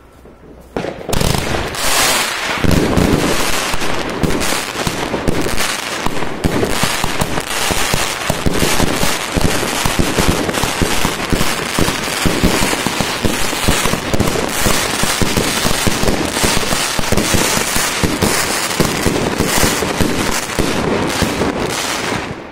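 Consumer fireworks cake (multi-shot battery) firing a rapid, continuous barrage of launches and aerial bursts, starting about a second in and stopping just before the end.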